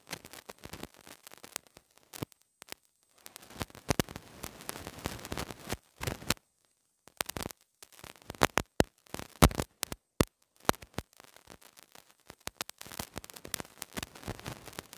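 Pen writing on paper: short scratchy strokes and taps in runs, with brief pauses between words.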